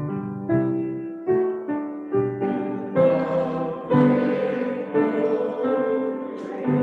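Piano playing a hymn tune, with the congregation singing along.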